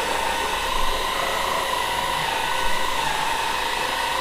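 AGARO cordless stick vacuum cleaner running steadily, its brushless DC motor giving a high whine over the rush of suction air, wavering slightly in pitch.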